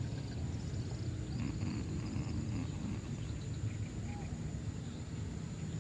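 Open-air lake ambience: a steady low hum with faint distant voices, and one short chirp about four seconds in.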